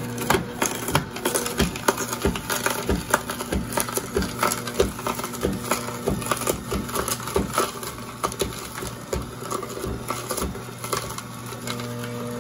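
Masticating juicer's motor humming steadily while its auger crushes carrots, with dense, irregular cracking and crunching of carrot pieces being pressed into pulp. The crunching thins out near the end, leaving the motor hum.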